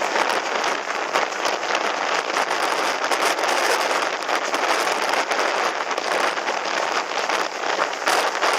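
Windsurf board skimming over choppy water in strong wind: a steady rushing hiss of spray, peppered with dense crackling, and wind buffeting the microphone.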